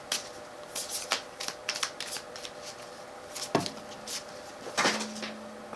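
Tarot cards being shuffled by hand: a run of quick, irregular flicks and slaps of card on card, with two louder knocks about three and a half and five seconds in.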